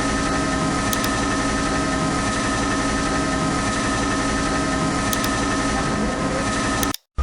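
CNC lathe running, a steady machine hum with several high steady whining tones; it cuts off abruptly near the end.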